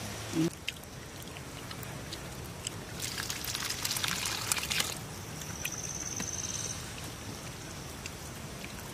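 Goat intestine soup poured from an aluminium pot onto a plate of rice, splashing for about two seconds. A short, high, pulsing trill follows.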